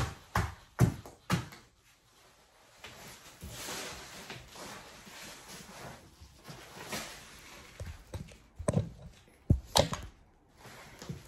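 Handling noise: a few knocks at the start, a stretch of soft rustling, then a cluster of loud thumps about nine to ten seconds in as foam packing peanuts and the box are moved about on the floor.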